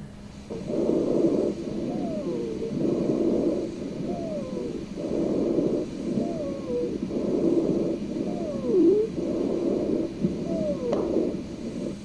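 Recorded lung sounds of wheezing: repeated breaths of airway noise, with a high-pitched musical tone that falls in pitch on each exhalation, about five times. The wheeze is air whistling through airways narrowed by bronchoconstriction and secretions, as in asthma or COPD.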